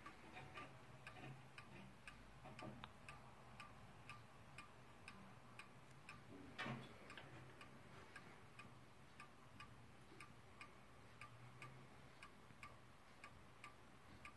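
Faint ticking of a weight-driven Dutch Zaanse-style wall clock's pendulum escapement. The tick-tock is uneven, a sign that the clock is out of beat. A louder knock comes about six and a half seconds in.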